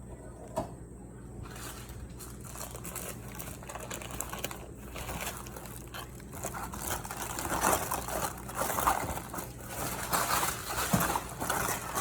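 Wrapping material crinkling and rustling as a crystal is unpacked by hand, getting louder and busier in the second half.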